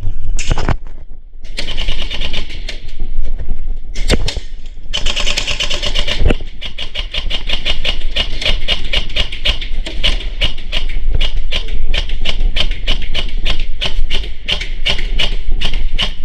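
Airsoft guns firing: rapid, sharp clicking shots in bursts, near-continuous from the middle onward, over a low rumble.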